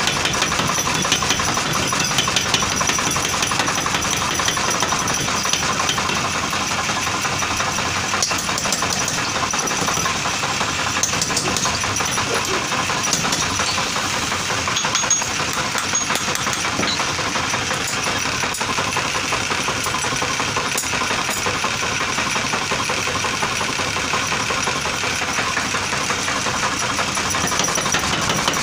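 Forging power hammer running and striking a red-hot iron bar in steady, rapid blows.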